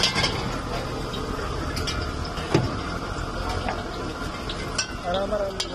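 Steel ladle stirring and scooping hot oil in a wok, clinking sharply against the wok's side several times, over the steady rush of a gas burner.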